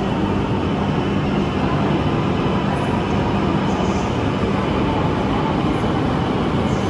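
E5 series Shinkansen slowing as it pulls in alongside the platform: a steady rush of running noise over a constant low hum.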